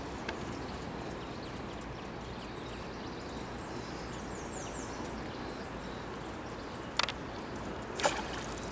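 Quiet riverside ambience: a steady low background noise with a few faint high chirps, like small birds, around the middle, and a sharp click about seven seconds in and another just before the end.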